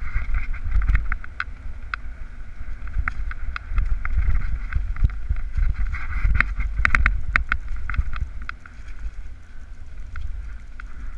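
Mountain bike running fast down a rough dirt singletrack: wind buffeting the camera's microphone, with the rattle and sharp knocks of the bike over roots and rocks, thickest a little past the middle.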